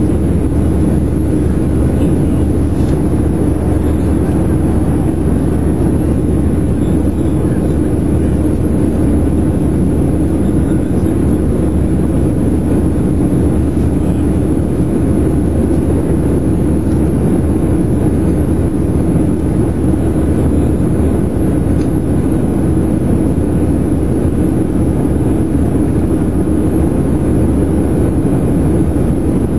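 Steady cabin noise inside a Boeing 737-700 in flight: the low drone of its CFM56-7B turbofan engines and the rush of air past the fuselage, heard from a window seat by the wing. It holds level and unbroken throughout.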